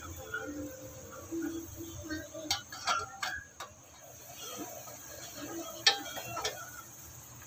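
Sharp clinks and knocks of cookware: a stainless steel pot lid and a wooden spoon striking the pot. There is a quick run of four clicks about three seconds in, then a louder knock with a couple more about six seconds in.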